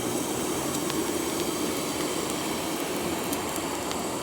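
Charcoal forge fire burning with a steady rush of air, with scattered sharp crackles.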